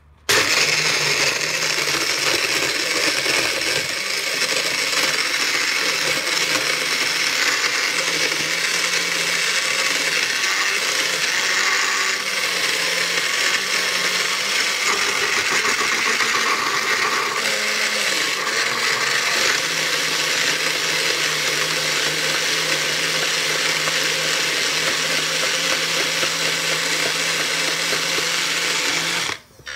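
Hinari Genie bullet blender running steadily, blending ice and fruit smoothie in its jug. It switches on sharply right at the start and cuts off just before the end.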